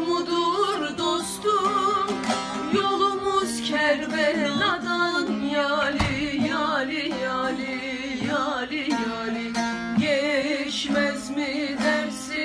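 Two women's voices singing a Turkish Alevi folk song in long, ornamented lines without clear words, over a plucked string instrument accompaniment.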